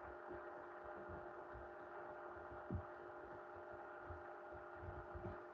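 Faint steady electrical hum, with a few soft low thuds, one a little louder near the middle.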